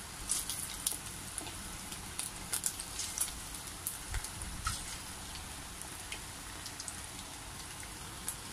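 Corn-flour-coated chicken pieces deep-frying in a pot of hot oil: a steady sizzle with scattered crackling pops, as more pieces are dropped in.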